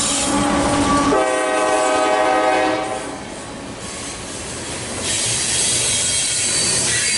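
CSX diesel locomotive running as it passes close by. About a second in, a multi-note locomotive horn sounds for about a second and a half, and then loaded coal hoppers roll past with wheel clatter, getting louder again near the end.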